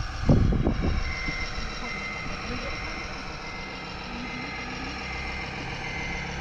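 Reversing beeper on a radio-controlled model construction vehicle, a high electronic beep repeating at an even pace over the steady hum of the model's motor and sound module.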